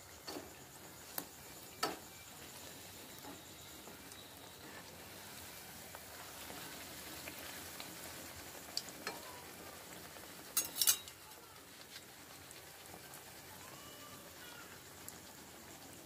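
Sugar-and-flour pitha deep-frying in hot oil with a steady sizzle. Several sharp clinks of a metal slotted spoon against the pan come through it, the loudest pair about ten and a half seconds in.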